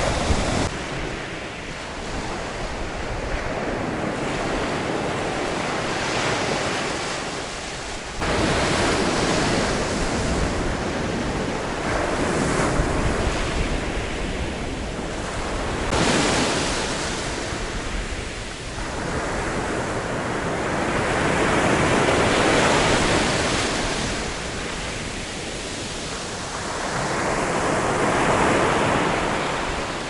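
Small Mediterranean waves breaking and washing up a pebble beach. The surf rises and falls with each wave, and the level jumps up abruptly about eight and sixteen seconds in.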